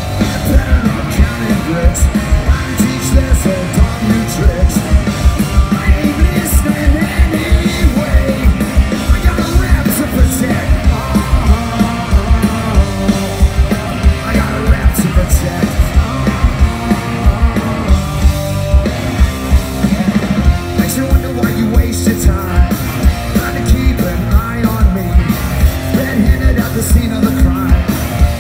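Live punk rock band playing loudly through a festival PA: a fast, steady drumbeat, electric guitars and shouted vocals.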